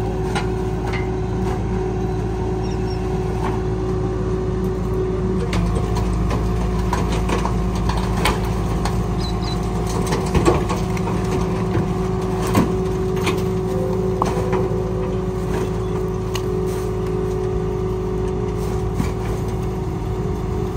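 Rear-loader garbage compactor truck running steadily with a constant drone and hum, while bulky rubbish is thrown into its hopper, making scattered knocks and clatters; the loudest knocks come about halfway through and again a couple of seconds later.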